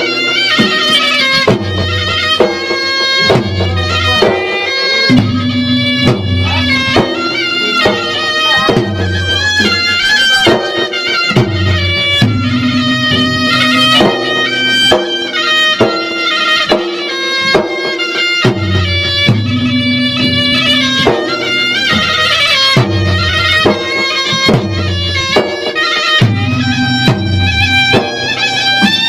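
Traditional Makassarese gendang ensemble playing: a reedy pui'-pui' shawm holds a continuous, stepping melody over steady beating of the gendang drums.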